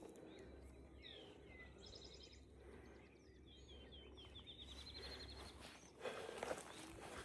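Faint songbirds singing: a few chirps, a short fast trill, then a quick run of repeated notes. A few footsteps on the trail near the end.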